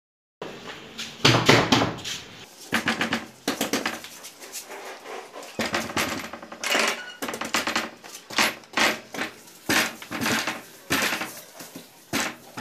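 Fist knocking and banging on a wooden door in many irregular, sharp hits.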